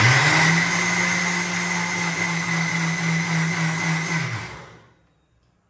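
Electric mixer grinder with a steel jar grinding soaked moong dal and rice dry, before any water is added. The motor spins up at once and runs steadily with a whine. About four seconds in it is switched off and winds down, fading out by about five seconds.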